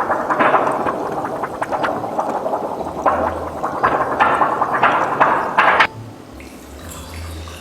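Water churning and bubbling, with many small crackles, that cuts off abruptly about six seconds in and leaves a quieter, fainter water sound.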